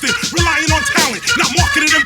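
Hip hop track playing, a rapper's voice over the beat.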